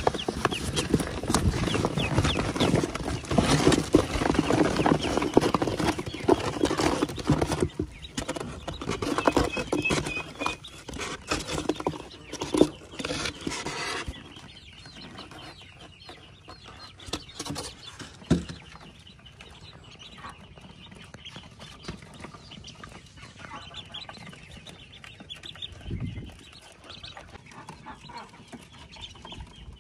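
A brood of Pekin ducklings peeping. For the first half this is mixed with loud rustling and scrabbling as they are handled in the cloth and tipped into the wooden box; after that the peeping goes on more softly with little else.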